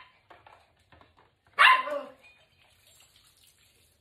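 A small dog barks once, about a second and a half in.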